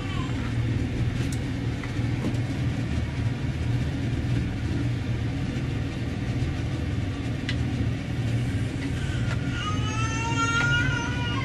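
A steady low hum with a few faint light clicks, and a high wavering call near the end.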